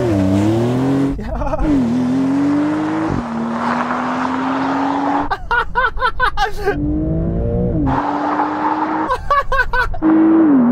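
Porsche 911's flat-six engine accelerating hard from a standing start, its pitch climbing and then dropping sharply several times as it shifts up, over tyre and wind noise. A man laughs and shouts in short outbursts.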